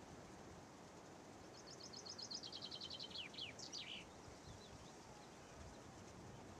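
A small songbird sings one faint song: a rapid series of high notes stepping down in pitch and ending in a short flourish, lasting about two and a half seconds, over a faint steady background hiss.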